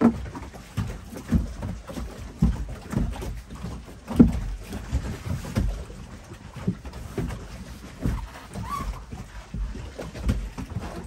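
Water slapping and lapping irregularly against the boat's hull, in uneven low thumps about once or twice a second.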